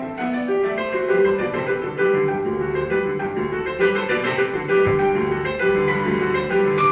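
Piano notes sounding from a staircase whose steps are piano keys, set off as people walk up it: an irregular run of overlapping notes, with one note repeating often. Heard as video playback over loudspeakers in a large hall.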